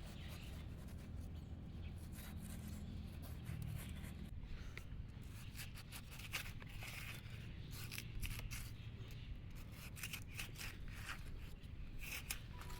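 Handwork sounds: a run of short, irregular clicks, snips and scrapes over a low steady rumble.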